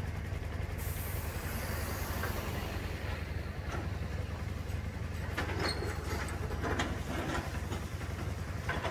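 New Holland hydraulic excavator's diesel engine running with a steady low rumble during building demolition. A hiss comes in about a second in, and scattered knocks and clatter of debris follow in the second half.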